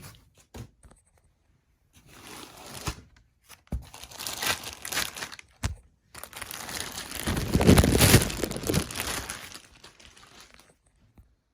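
Packaging being crinkled and torn off a subwoofer during unboxing, in short rustling bursts with a few light knocks. The longest, loudest stretch of crinkling comes about six seconds in and lasts some four seconds.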